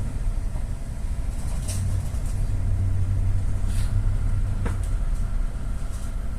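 Low, steady rumble aboard a ship in rough seas, with a few faint knocks about two, four and five seconds in.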